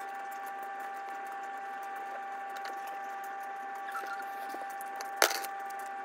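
A steady background hum made of several fixed whining tones, from a running household appliance. One sharp click cuts across it about five seconds in.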